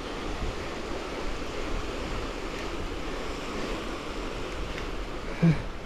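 Steady outdoor wind and lapping lake water at the shore, with wind rumbling on the microphone. A brief grunt comes near the end.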